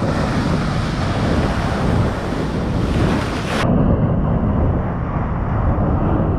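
Storm-force cyclone wind buffeting the microphone over heavy surf, a loud steady roar of noise. A little over halfway through, the high hiss drops away abruptly, leaving a duller low rumble.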